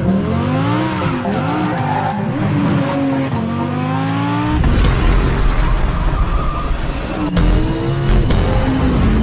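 Sports car engine revving up and down with tyre squeal, rising again through the revs in two long climbs, mixed with music; a deep bass rumble comes in about halfway.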